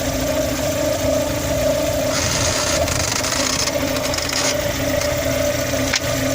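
Lada Vesta engine idling steadily, with two short creaking, rasping bursts about two and four seconds in as the robotised gearbox's clutch actuator works when a gear is selected, and a click near the end. The creak comes from the clutch actuator.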